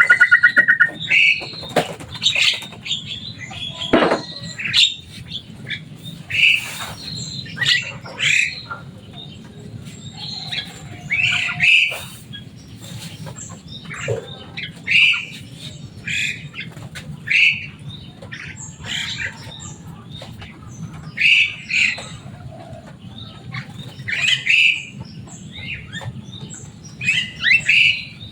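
Javan myna (jalak kebo) giving short, harsh, squawking calls again and again, one every second or two, with a quick rapid trill right at the start.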